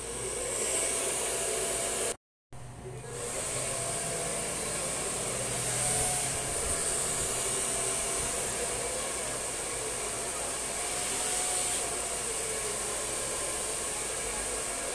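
Handheld hair dryer blowing steadily while blow-drying long hair, its tone wavering slightly. The sound cuts out completely for a split second about two seconds in.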